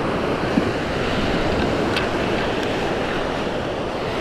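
Steady rush of Gulf surf breaking on the beach, with wind blowing across the microphone.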